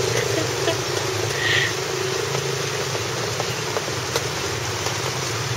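Steady rain hiss, with a low steady hum underneath.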